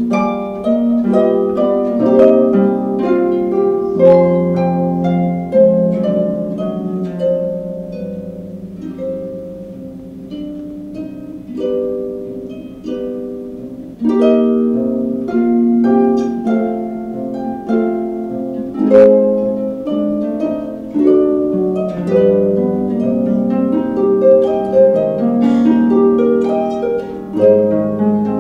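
Concert harp played solo: a continuous flow of plucked melody notes and chords ringing over low bass notes. It grows softer for a stretch before the middle, then fuller again from about halfway.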